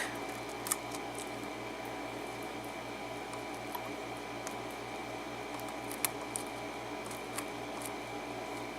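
A lock pick working the pin stack at the back of an Abus 83/45 six-pin padlock, with faint scraping and an occasional sharper tick as pins are lifted and set under tension. A steady low hum runs underneath.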